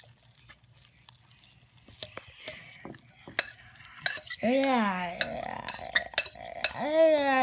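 Homemade glue-and-laundry-detergent slime being stirred and squished, a run of sticky clicks and wet smacks that starts about two seconds in. A voice makes a wordless sliding 'ooh' sound twice over it in the second half.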